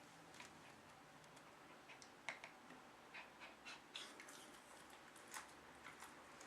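Near silence: faint room hiss with a few scattered, irregular small clicks.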